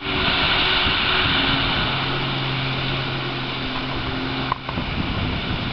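Jet ski (personal watercraft) engine running at speed through turns, a steady drone under a strong hiss, cutting out briefly about four and a half seconds in.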